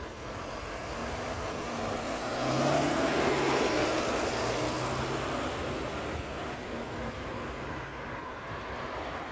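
Road traffic going by, with a double-decker bus's engine passing close, loudest about three seconds in and then fading away.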